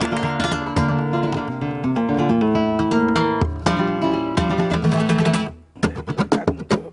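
Flamenco guitar, a nylon-string guitar with a tap plate, played in quick strummed and picked passages. The playing breaks off briefly about five and a half seconds in, then sharp rapid percussive strokes start up with hand clapping.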